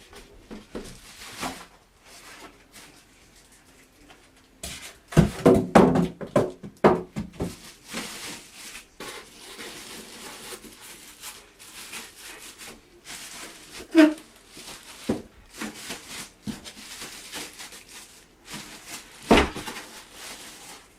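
Handling noise from a PC case being unpacked: irregular rustling and clunks, loudest in a busy stretch about five to seven seconds in, with a knock that rings briefly about fourteen seconds in and a sharp knock near the end.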